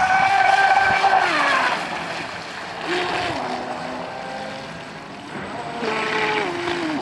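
Electric brushless motor of an RC speedboat whining at speed under an Eachine SS 200A ESC. Its pitch drops in steps as the throttle eases about a second in, rises again around three seconds, and rises and steps down once more near the end.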